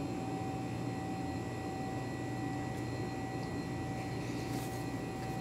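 Steady machine hum of a convenience store's air conditioning and coolers, with a few constant tones over a low rumble and a brief faint hiss about four and a half seconds in.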